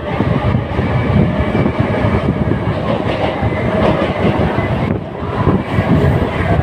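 Mumbai non-AC suburban local train running at speed, heard from inside the coach: a loud, continuous rumble with the wheels clattering over the rail joints, and a faint steady whine over it.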